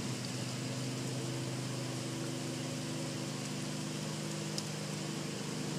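Riding lawn mower engine running steadily, a low even hum over a constant hiss.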